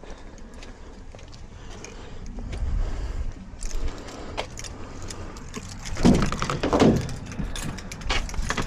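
Keys jangling and loose things clattering while someone rummages around inside a van, with two louder clunks about six and seven seconds in.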